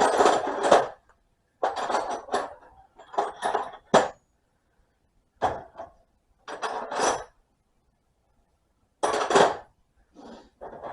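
Loose metal tools and hardware clinking and clattering in about seven short bursts with pauses between them.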